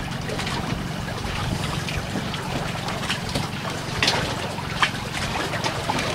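Steady wash of water and wind on the microphone, with a few light metallic clicks about three to five seconds in as a wrench works the brass fittings on a metal tank.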